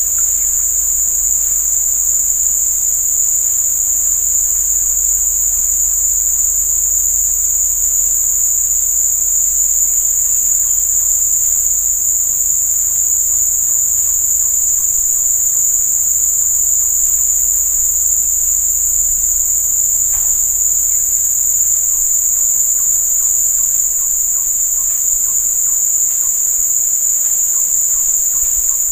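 Loud, steady, high-pitched insect drone from the surrounding vegetation, unbroken, with a faint low rumble beneath it.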